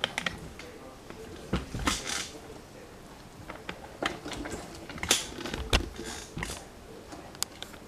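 Kitchenware being handled: scattered light clicks and knocks, with a few short hissy scrapes about two seconds in and again around five to six and a half seconds in.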